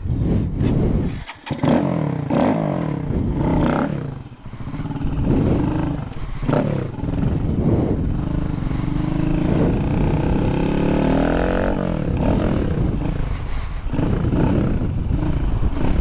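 A 2015 Honda Grom's 125 cc single-cylinder engine revving as it pulls away and runs up through the gears. The note drops briefly twice in the first few seconds, then climbs steadily in pitch before levelling off. The bike has just been fitted with new clutch springs and a smaller front sprocket.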